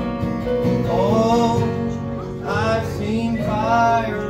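A man singing to his own acoustic guitar, a slow ballad with the guitar under the voice and the voice coming in about a second in with bending, held notes.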